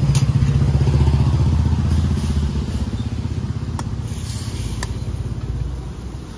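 A motorcycle engine running close by, loudest in the first couple of seconds and then fading away as it moves off. Two short sharp clicks come about four and five seconds in.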